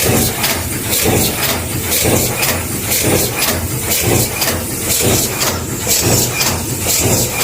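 Cold forging machine running, its strokes coming in a fast, even rhythm over a steady low motor hum.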